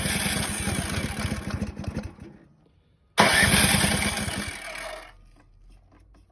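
Ariens snowblower engine cranked over twice, each time for about two and a half seconds with a fast, even pulsing, without catching: the engine will not start.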